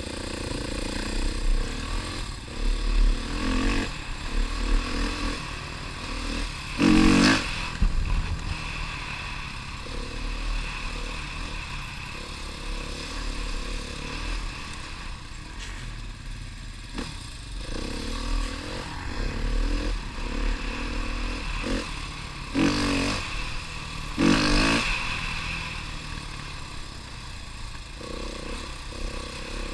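Husqvarna dirt bike engine running as the bike is ridden along a wet dirt trail, with a low wind rumble on the helmet microphone. There are a few brief loud bursts, one about a quarter of the way in and two close together later.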